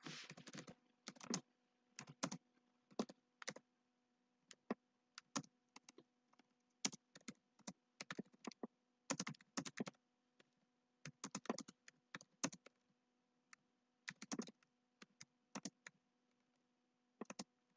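Typing on a computer keyboard: faint, irregular keystrokes in short quick runs, over a faint steady hum.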